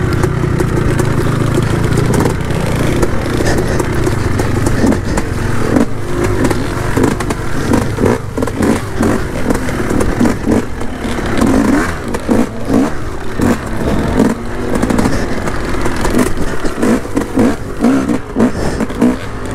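Yamaha YZ250 two-stroke dirt bike engine running while it is ridden through a muddy rutted trail. It runs fairly steadily at first, then the throttle comes on and off in quick repeated surges from about eight seconds in.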